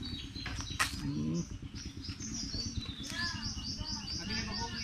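Small birds chirping, with a quick regular run of short high chirps, about four a second, starting about three seconds in.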